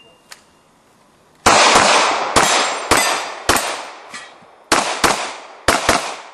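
Gunshots from a competitor firing a timed IPSC course of fire: about nine shots in quick succession, several as fast pairs, each ringing out and fading.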